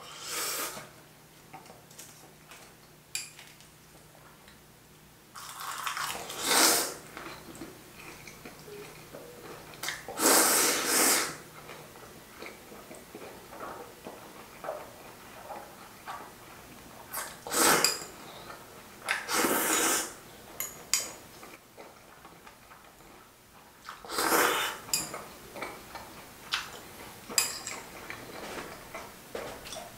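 Close-up eating sounds: about six loud slurps of bibim-myeon noodles, spaced a few seconds apart, with quieter chewing and light clicks of metal chopsticks against a small bowl in between.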